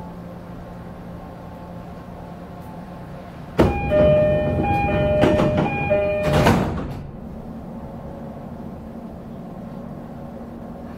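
Inside a stopped E531-series electric train: a steady hum, then about three and a half seconds in a door-closing chime alternating two tones, heard three times, while the sliding doors run and shut with a heavy thud at about six and a half seconds. The steady hum returns afterwards.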